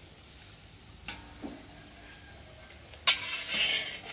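Long metal spatula stirring and scraping cauliflower around a large metal kadhai, with the sizzle of vegetables frying in hot oil. After a couple of faint taps, it starts suddenly about three seconds in with a clatter and a burst of scraping and sizzling.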